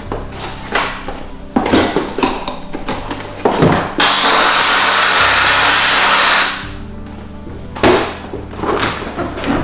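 Handheld steam cleaner wand with a cloth pad releasing a steady hiss of steam for about two and a half seconds, starting about four seconds in and cutting off sharply, used to heat paint protection film on a car bonnet. Background music with a steady beat plays throughout.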